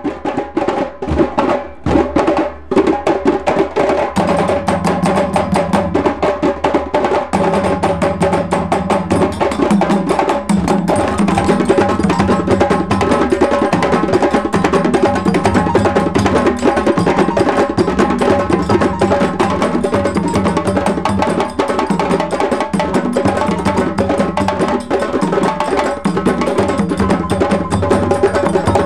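A djembe drumming ensemble playing a West African rhythm. A few opening strokes give way, about four seconds in, to the full group playing a dense, steady pattern with low drum notes beneath.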